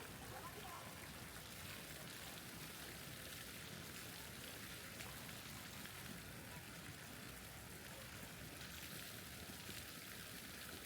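Faint steady rushing noise with no distinct events, like flowing or falling water.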